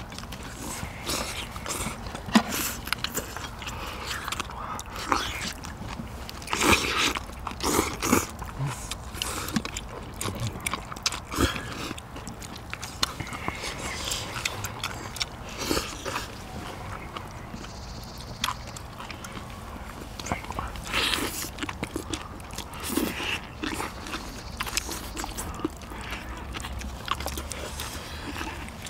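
Several people chewing and biting into braised spicy seafood and noodles, with irregular clicks throughout.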